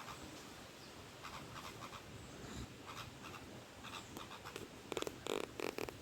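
Small birds bathing: faint short chirps and scratchy flutters, then a quick run of louder splashing wingbeats about five seconds in.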